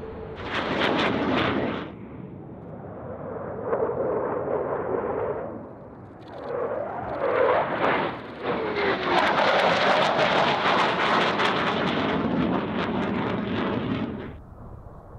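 F-15 Eagle twin turbofan jets on low-level passes: crackling jet noise in several separate bursts, the longest and loudest stretch in the second half, cutting off suddenly near the end.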